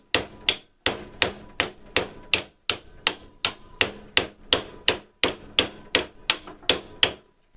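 Steady hammer blows, about three a second, knocking at the stuck wooden handles of an old draw knife to drive them off the tang after the peened ends were ground off; the handles are not coming loose. The blows stop shortly before the end.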